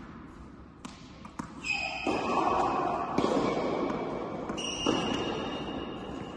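Tennis ball knocks, bouncing on the court and struck by racket strings, echoing in a large indoor tennis hall, with several long high squeaks.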